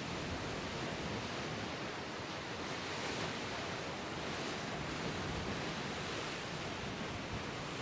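Sea surf and strong wind making a steady rushing noise, swelling slightly about three seconds in.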